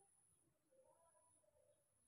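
Near silence: room tone, with only faint traces of sound.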